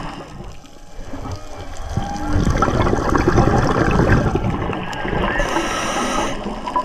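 Underwater sound: loud bubbling and crackling water noise that swells after about two seconds, with faint whale song moans gliding in pitch beneath it.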